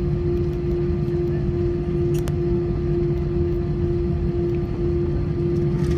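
Steady Airbus A320 cabin noise: an even drone with one held tone over a low rumble.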